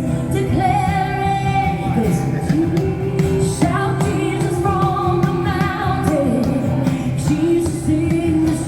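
A Christian worship song being sung over musical accompaniment, with long held notes that slide between pitches.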